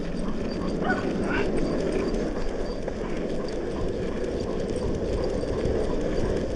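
Longboard wheels rolling fast on asphalt, a steady rumbling roar mixed with wind on the microphone. There are two short high whines from the German Shepherd pulling the board about a second in.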